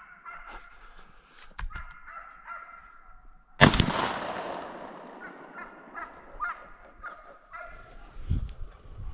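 Hunting dogs baying repeatedly. About three and a half seconds in, a single loud shotgun shot rings out and its echo fades over a second or two, while the baying carries on.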